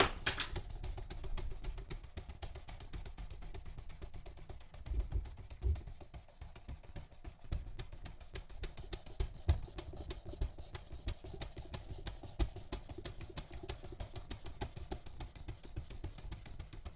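Rapid, repeated rasping strokes of a 240-grit diamond stone on a Worksharp Precision Adjust guided sharpener, drawn across a knife edge to raise a burr on soft steel, with a few low knocks of the stone arm and clamp.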